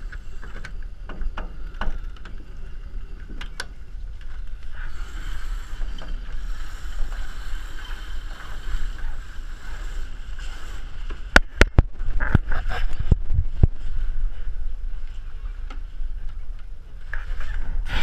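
Wind and water noise on board an Extreme 40 racing catamaran, with a few light clicks near the start as a winch is worked. About eleven to fourteen seconds in come a cluster of sharp clicks and knocks from deck gear.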